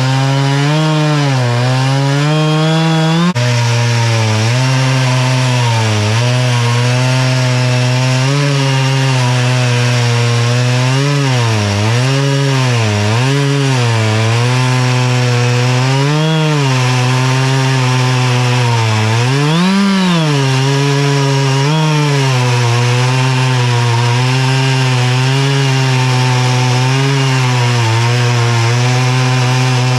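Two-stroke Stihl chainsaw on an Alaskan chainsaw mill, running at full throttle while ripping a board lengthwise from an oak log. The engine pitch dips and recovers again and again as the chain loads up in the hardwood, with a sudden drop in pitch about three seconds in.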